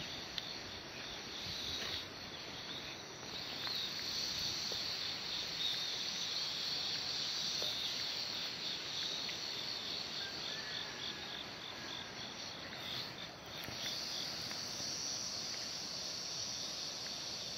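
Crickets chirping steadily in an even, pulsing rhythm over a soft, steady background hiss.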